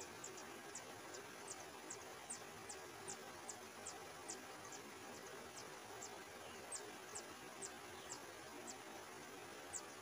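Songbird nestlings begging from the nest: a string of short, thin, high-pitched notes, each dropping in pitch, about two a second, over a steady faint hiss. The calls stop just before the end.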